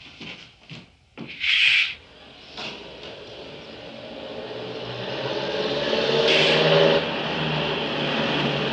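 A car engine approaching, growing steadily louder over several seconds and then running on at a slightly lower level. Before it come a few knocks and a short loud burst of noise about a second and a half in.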